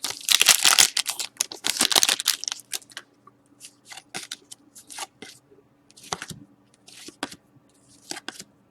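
A 2013-14 Crown Royale hockey card pack's wrapper being torn open with a dense crinkly tearing for about the first three seconds, then short, scattered swishes of cards slid through the hands one by one.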